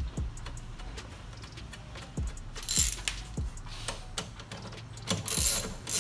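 A 3/8-inch drive ratchet with a 10 mm socket clicking in short runs as a bolt is run back in: one burst about three seconds in and a longer one near the end, with light knocks of the tool between.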